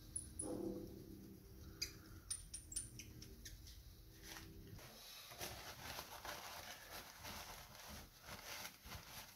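Faint handling sounds: small sharp clicks and taps, then a soft rustling with scattered ticks from about five seconds in.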